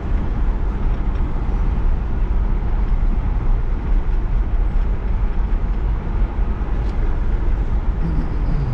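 Steady road and engine noise of a moving car, heard from inside the cabin, with a low rumble.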